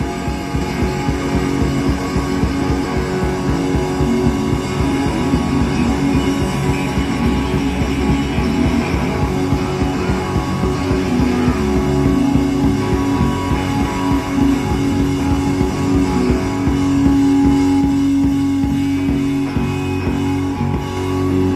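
Live rock band playing: drum kit, electric bass and electric guitar, loud and steady. Over the last few seconds a long note is held.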